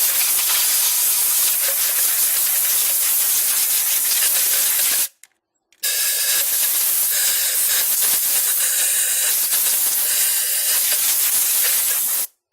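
Compressed-air blowgun hissing in two long blasts, with a brief break about five seconds in, blowing dirt out of the engine bay and off the valve cover.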